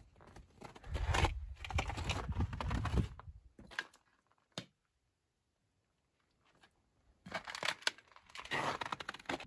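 Footsteps crunching through snow, broken by a few seconds of near silence in the middle.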